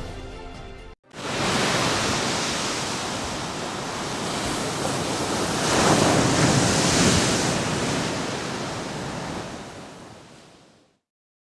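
A rushing noise that swells to its loudest about six seconds in, then fades away before the end, like surf or wind.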